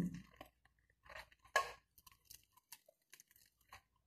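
Chewing and crunching on fried chicken, with a few short crisp crackles, the loudest about a second and a half in, as the breaded pieces are bitten and torn apart.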